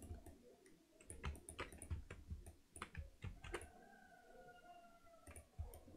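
Faint, irregular computer keyboard keystrokes and mouse clicks as Blender shortcuts are entered. A faint, slightly falling tone sounds from about three and a half seconds in for under two seconds.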